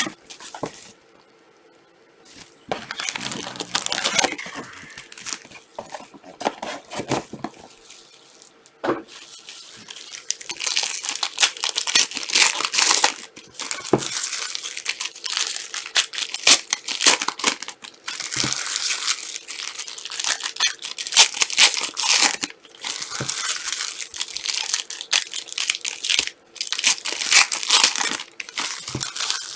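Trading-card pack wrappers crinkling and tearing as Panini Prizm packs are opened by hand, in irregular bursts of rustling with sharp crackles.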